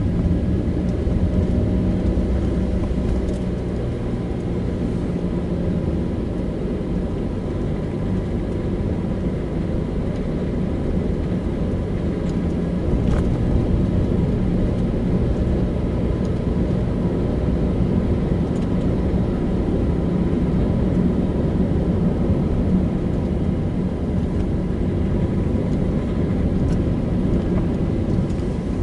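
Car driving along a road: a steady low rumble of engine and tyre noise, with a few faint ticks.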